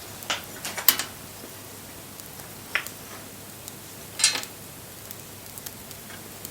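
Wood bonfire crackling: a steady hiss with sharp pops, several in the first second, then single louder cracks about three and four and a half seconds in.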